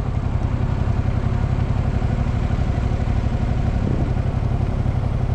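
Motorcycle engine running at low, steady revs while the bike rolls slowly, a fast even pulsing exhaust note with no revving.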